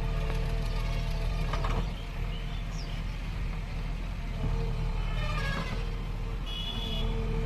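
JCB 3DX Ecoxpert backhoe loader's diesel engine running steadily while the machine digs, with a few short knocks from the working equipment.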